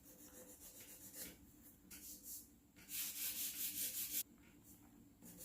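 Sandpaper rubbed by hand over a wooden brace, in short faint strokes, with a louder run of quick back-and-forth strokes about three seconds in.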